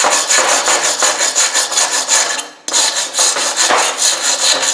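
Hand wire brush scrubbing hardened welding flux off a fresh aluminum stick weld on a cast-aluminum engine block, in quick, regular back-and-forth strokes. There is a short break about two and a half seconds in.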